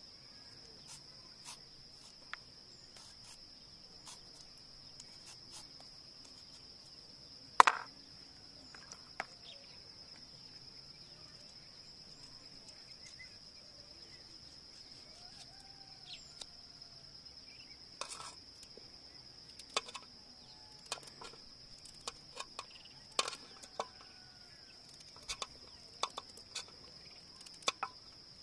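Insects trilling steadily in one high, unbroken pitch, with scattered sharp clicks and knocks. The loudest knock comes about eight seconds in, and the knocks come more often in the last ten seconds.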